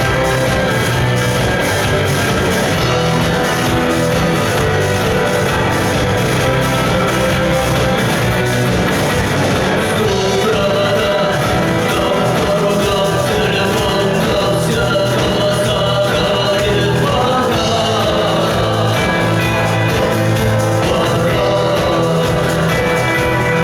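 Rock band playing live, loud and steady, with a singer's voice over the band.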